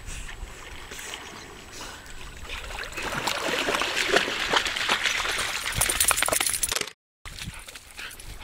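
Lake water splashing and sloshing, building up about three seconds in and stopping abruptly near the end.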